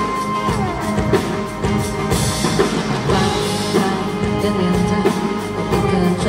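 Live band playing an instrumental passage between sung lines: acoustic and electric guitars over drums keeping a steady beat. A held sung note slides down and ends within the first second.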